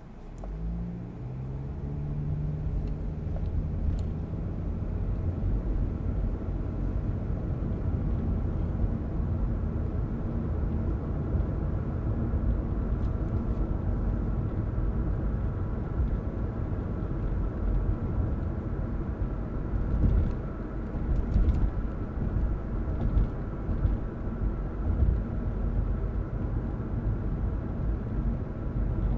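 Car pulling away from a stop, heard from inside the cabin: the engine note rises over the first few seconds as it accelerates. It then settles into a steady low rumble of engine and tyres at cruising speed.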